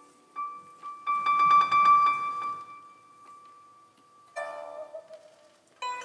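Piano and pipa playing a slow, sparse duet passage: a few ringing single notes, a rapid repeated high note about a second in, then plucked notes with a slight downward bend near the end.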